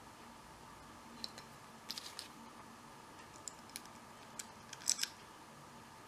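Faint, scattered light metallic clicks and taps as an American Lock 5300 series padlock is handled with lock-picking tools, with a tension wrench being fitted to the keyway. The clicks come in a few small clusters over a faint steady hum.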